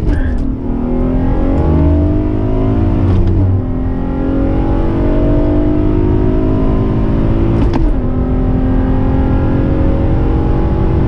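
Acura TL SH-AWD's 3.7-litre V6, heard from inside the cabin, pulling hard under full acceleration through the gears. Its pitch climbs, then drops at an upshift about three seconds in and again near eight seconds, the second shift with a short click.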